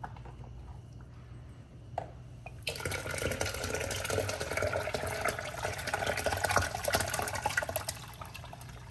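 Blended watermelon poured from a blender jar into a pitcher of water: a steady splashing pour that starts about two and a half seconds in and stops shortly before the end.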